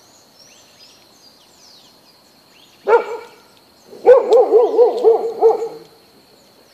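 A dog barks once, then gives a quick run of about seven yelping barks lasting under two seconds.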